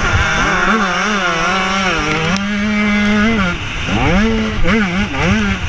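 Motocross bike engine under racing load, heard from a camera on the bike: the revs rise and fall as the rider works the throttle, hold high through the middle, drop briefly about three and a half seconds in, then climb again. Wind buffets the camera underneath.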